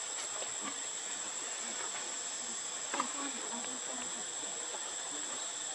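Steady high-pitched insect drone of cicadas or crickets, with a faint click about three seconds in.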